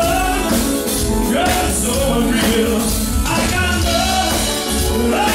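Live band playing an upbeat dance song: a lead voice singing over drum kit, bass guitar and keyboard.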